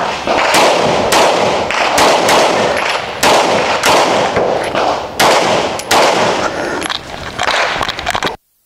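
A string of handgun shots fired during a USPSA stage run, coming in quick groups of two or three with short gaps between, each shot ringing out across the range. The sound cuts off abruptly near the end.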